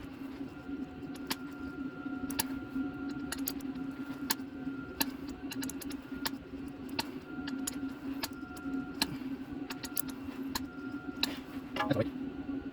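Scattered light metallic clicks of a wrench being worked on bolts as they are turned a further 90 degrees past their torque setting, over a steady low hum.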